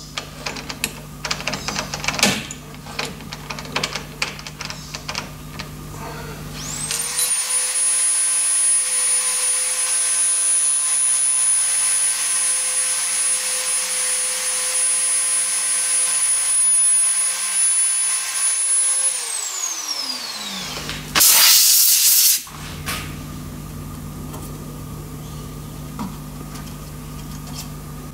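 Machine spindle motor spinning up with a rising whine, running steadily for about twelve seconds while a center drill bores a small cross hole in a propeller spinner, then winding down. Clicks and knocks from handling the drill chuck come before it, and a loud hiss of about a second comes soon after it stops.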